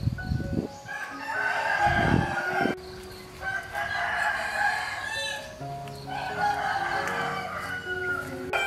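Rooster crowing: three long crows, each about two seconds, over background music of held notes.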